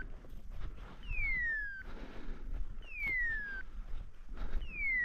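A hunting dog's beeper collar sounding its point signal: a falling whistle-like tone, repeated at an even pace about every two seconds. Such a signal means the dog is standing on point.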